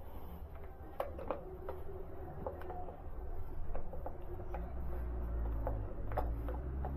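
A Phillips screwdriver works a screw on a motorcycle's frame, making scattered small clicks and taps of tool on screw and metal. A low rumble grows stronger in the second half.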